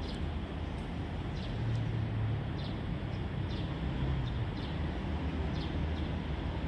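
Steady low outdoor rumble and hiss, with a small bird chirping short high notes about eight times at irregular intervals.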